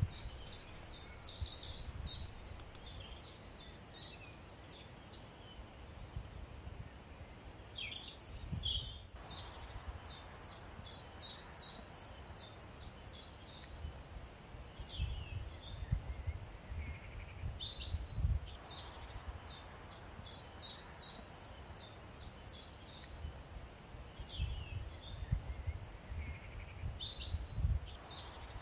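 Outdoor birdsong: a songbird repeats a fast trill of high chirps in phrases of a few seconds each, several times over, with a few other birds calling between them. A low, gusty rumble runs underneath.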